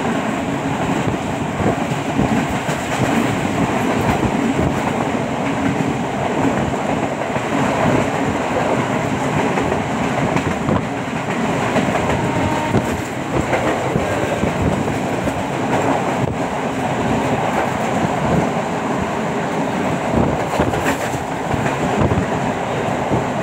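A moving train heard from aboard a carriage: a loud, steady rumble of the wheels running on the rails, with the clatter of wheels over the track throughout.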